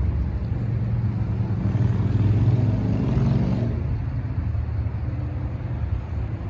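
A motor vehicle passing on the road: a low engine hum that swells to its loudest about two to three and a half seconds in, then eases to a steadier, quieter hum.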